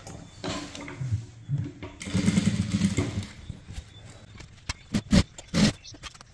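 Sewing machine running for about a second as it stitches a folded hem, followed by a few sharp clicks near the end.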